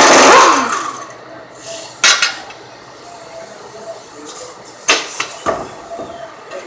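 A loud rushing burst of tool noise that dies away about a second in, followed by a few sharp metallic clinks and knocks from work on a pickup's front wheel.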